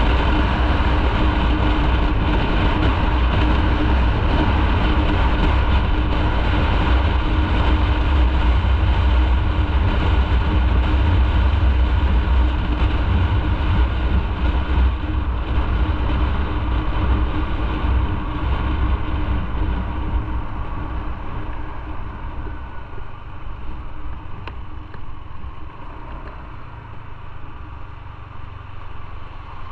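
Motorcycle under way: a steady engine note over a heavy low rumble. In the last ten seconds the bike eases off, the rumble fades and the engine note drops a little.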